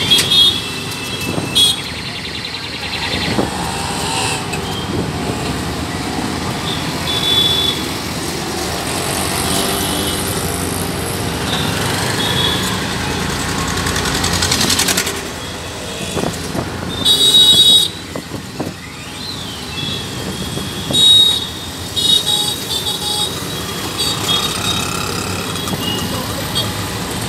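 Riding in an auto-rickshaw through busy town traffic: the rickshaw's engine runs steadily under the noise of passing scooters and motorcycles. Vehicle horns toot again and again, the longest and loudest about 17 seconds in, with a cluster of short beeps between about 21 and 25 seconds.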